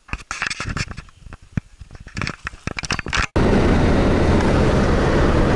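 Irregular clicks and rustling for about three seconds, then an abrupt cut to the steady road and engine noise inside a car driving on a highway.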